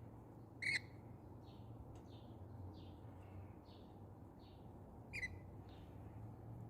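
Birds chirping: a steady run of faint, short chirps about twice a second, with two louder, sharp calls, one under a second in and one about five seconds in.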